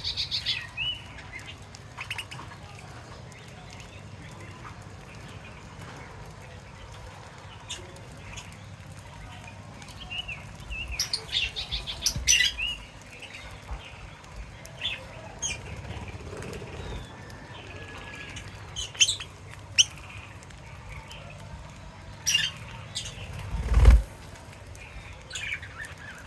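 Small pet birds chirping in short scattered bursts, with wings flapping, and one loud thump about two seconds before the end.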